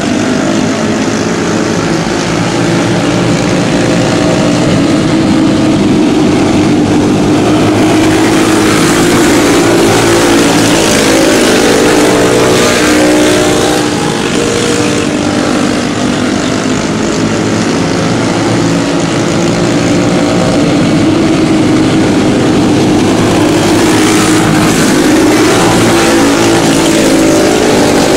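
A pack of racing karts with Briggs & Stratton Animal single-cylinder four-stroke engines running flat out. Several engine notes overlap, rising and falling in pitch as the karts lap the track, with a brief dip in loudness about halfway through.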